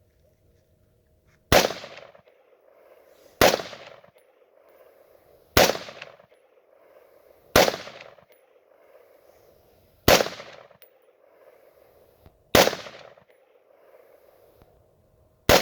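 AR-15 rifle fired as single shots, seven of them spaced about two seconds apart, each with a short echo trailing off. The rifle is being broken in.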